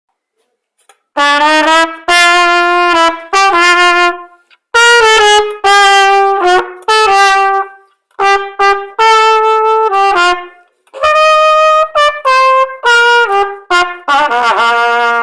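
American Standard trumpet played in several short phrases of held notes stepping up and down in pitch, with brief pauses between phrases; the last phrase wavers in pitch.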